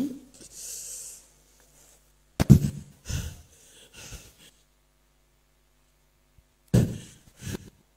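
Heavy breathing close to a handheld microphone: a faint hissing exhale about half a second in, a loud sharp gasp about two and a half seconds in followed by two weaker breaths, then another loud gasp near the end.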